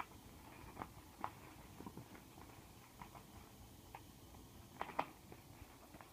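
Scissors snipping through bubble wrap, with scattered light clicks and crinkles of the plastic; two sharper clicks come close together about five seconds in.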